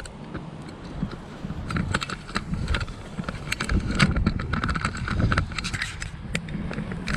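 Handling noise from a GoPro camera being set up on its mount: irregular clicks, knocks and rubbing over a low rumble.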